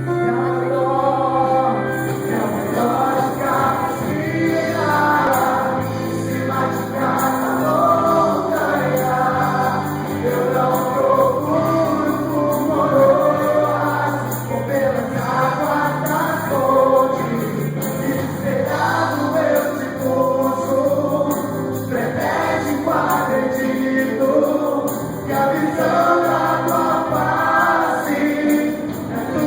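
Live gospel worship music: a singing group with band accompaniment, voices carrying the melody over a steady bass line.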